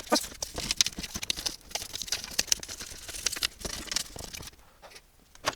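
Scratchy rubbing strokes and light knocks of the inside of a plastic computer case base being scrubbed clean, dying away about four seconds in.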